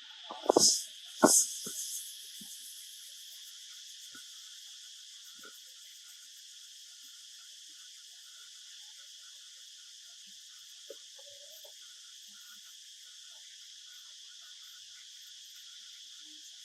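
Steady chirring of insects, with two loud knocks about half a second and just over a second in.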